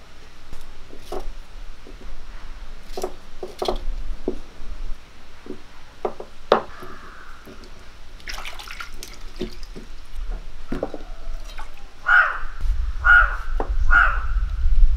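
Hands swishing and splashing tomatoes in a clay bowl of water, with small knocks of the tomatoes and bowl. Near the end a knife cuts a tomato in three strokes about a second apart.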